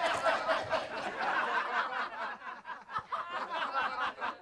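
Several people laughing and chuckling in a dense, choppy stretch of laughter.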